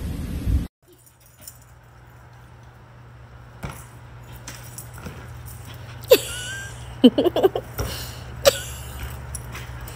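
Low rumbling noise that cuts off abruptly, then a dog giving short, sharp yips. They come in a quick run of several and then single ones as it leaps at a ball hung on a line.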